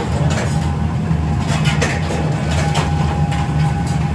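Forge furnace and workshop machinery running with a steady low hum and a faint steady whine, with scattered light clinks of steel tongs against hot steel blanks.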